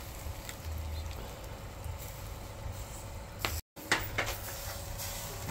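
Quiet ambience of a whole lamb roasting on a spit over hot coals: a steady low rumble and faint hum with a few faint crackles. The sound cuts out for a moment about three and a half seconds in.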